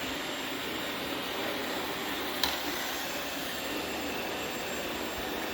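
iRobot Roomba robot vacuum running, a steady whir from its motor and brushes, with a single sharp click about two and a half seconds in.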